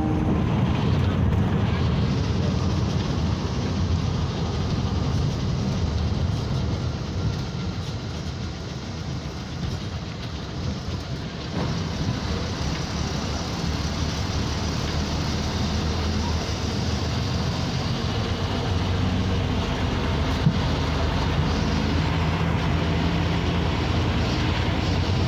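MSRTC Lal Pari bus's diesel engine running with tyre and road noise, heard from inside the driver's cabin; steady throughout, dipping a little for a few seconds in the middle before picking up again.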